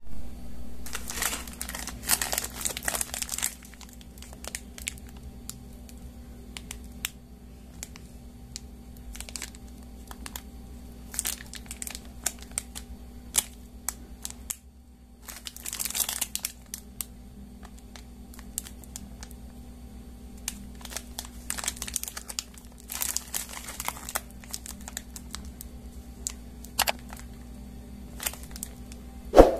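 Plastic snack wrappers crinkling as they are handled, including a Horlicks biscuit packet's plastic wrapper being turned over in the hands: several bursts of crackling with small clicks between them, over a faint steady hum. A sharp click near the end.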